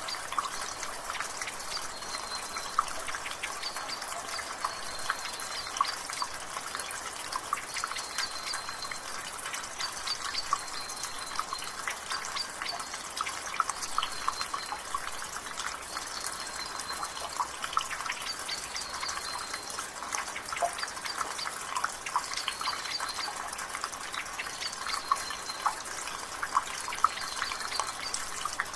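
Rainwater dripping from a gutter: many separate drops splashing over a steady drizzle hiss. A bird repeats a short high note every second or two.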